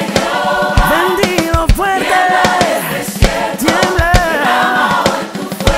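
Gospel song performed by a choir over a full band with drums and brass. Sung voices glide between pitches over steady drum hits.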